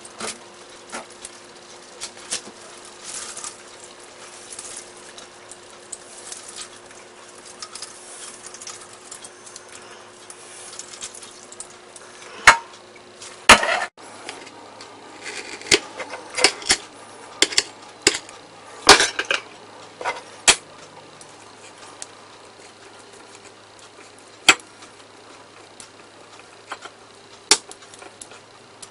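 Kitchen utensil sounds: quiet handling with scattered sharp clinks, as wet greens are lifted out of a stainless steel mesh colander and then snipped with kitchen scissors and pushed about with a fork on a porcelain plate. A faint steady hum stops about halfway through.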